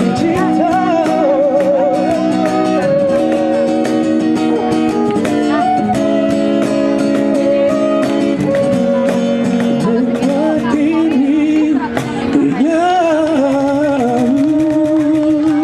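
Street busker's live music: strummed acoustic guitar with a singing voice holding long, wavering vibrato notes.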